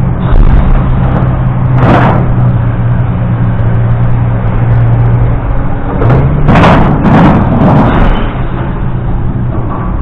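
A motor vehicle's engine running steadily, its note shifting about halfway through, with short loud noisy bursts about two seconds in and again around six to eight seconds in.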